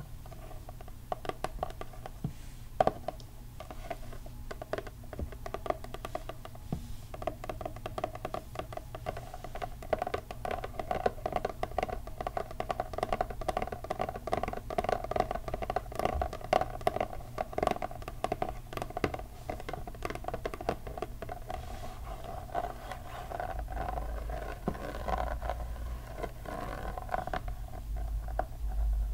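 Long fingernails tapping and scratching on the cardboard sleeve of an eyeshadow palette, in quick, irregular clicks.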